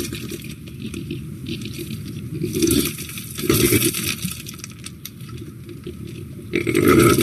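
Wild boar grunting several times as it roots through grass.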